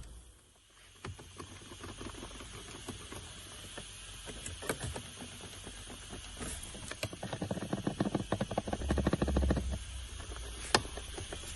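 Creaking and clicking from the dashboard trim of a Mercedes W213 E63 AMG: scattered ticks, then a fast run of creaky clicks over a low rumble, with a thump partway through and one sharp click near the end.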